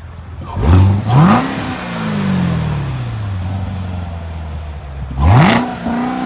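Chevrolet Corvette Z06 V8 on its stock exhaust, free-revved twice: a quick blip about half a second in and another near the end, each rising sharply and then falling back slowly toward idle.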